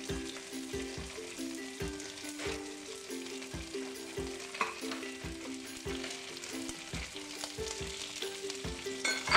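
Beef, onion and peppers sizzling in a hot wok under background music with a steady beat. Near the end a sharp clatter is the loudest sound.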